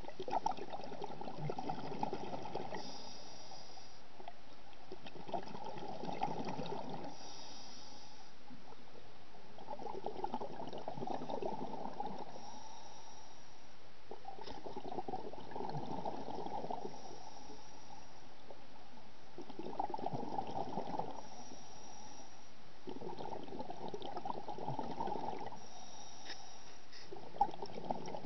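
A scuba diver breathing through a regulator underwater: a crackling rush of exhaled bubbles every four to five seconds, each lasting a second or two, with a short faint hiss of inhalation between them.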